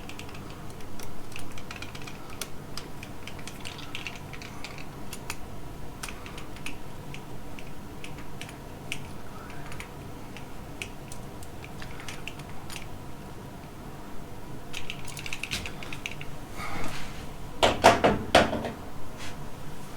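Small clicks, taps and metal handling of electrical wiring work: a bare ground wire being bent and fastened to a light switch. A louder burst of clattering comes about seventeen seconds in.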